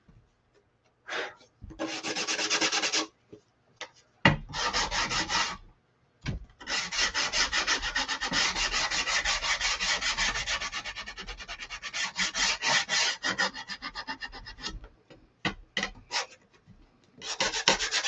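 Hand sanding with a small finger sander whose sandpaper is nearly worn out, rubbed along the edges of a painted wooden sign to distress them. Runs of quick back-and-forth scraping strokes, the longest about eight seconds, broken by short pauses.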